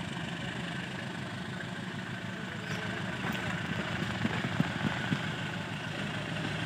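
Diesel railway engine idling steadily at a standing train, a low, even hum.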